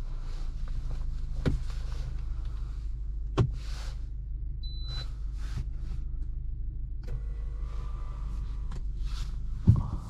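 CAOA Chery Tiggo 8 driving, heard from the driver's seat: a steady low rumble of its 1.6-litre petrol engine and the road, broken by three sharp knocks, the loudest near the end. A short high beep sounds about halfway through.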